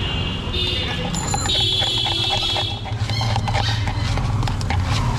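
Rapid clicking of a steel spoon stirring chana chaat in a plastic cup. Over it a high-pitched squealing tone comes and goes several times, wavering near the middle, above a steady low traffic rumble.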